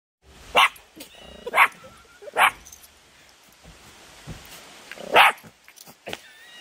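Small dog barking four times: three barks about a second apart, then a pause and one more bark about two and a half seconds later.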